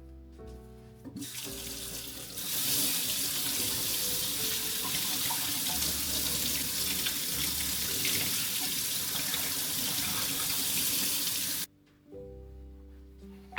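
Water running from a tap into a sink, a steady rush that starts about a second in, grows stronger a second later and cuts off suddenly near the end. Soft piano music plays before and after it.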